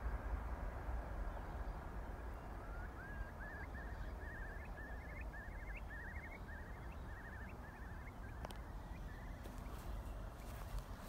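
Distant rumble of an Airbus A350-900's Rolls-Royce Trent XWB engines at takeoff power, heard as a steady low roar that slowly fades. Over it, a small songbird sings a run of repeated short trills from about two seconds in until past the middle, and a few sharp clicks come near the end.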